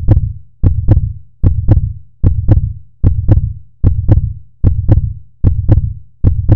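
A deep double thump repeating about every 0.8 seconds in a steady heartbeat rhythm, each pair sharp at the start and fading away.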